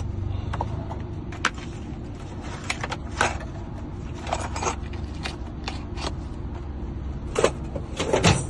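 Car key blanks clicking and clinking as they are handled and put back into storage, a scattering of separate clicks that come thicker near the end, over a steady low hum.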